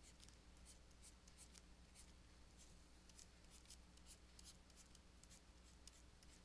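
Faint, irregular scratches and taps of a stylus drawing strokes on a tablet, over a steady low electrical hum.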